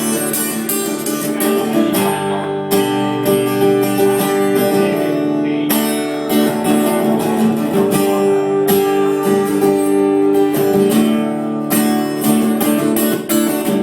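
Strummed guitar playing an instrumental passage of the song, without vocals.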